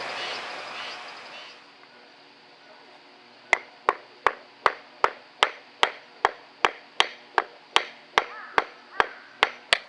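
Firewood being split by hand: sharp wooden chopping strikes in a fast, even rhythm, a little under three a second, starting about a third of the way in. Before them a steady noise fades away over the first second and a half.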